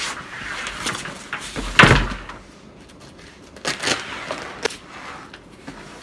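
A large foam climbing crash pad is flipped over onto a table, its nylon cover rustling and scraping. It lands with one loud thud just under two seconds in, followed by smaller knocks and scuffs as the second pad is pushed into place.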